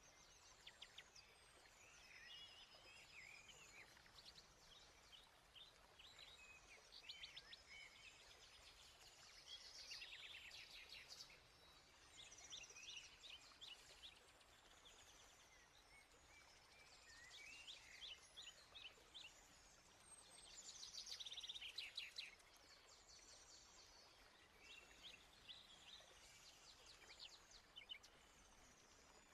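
Faint birdsong: short chirps and trills in repeated bursts over a low hiss.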